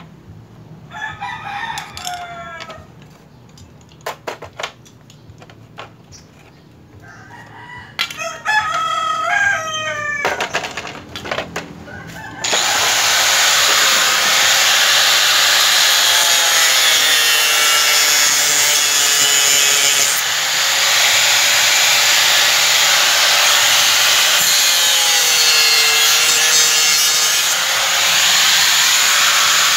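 A rooster crows twice in the first ten seconds. About twelve seconds in, an electric angle grinder starts and runs loudly to the end, its pitch dipping twice.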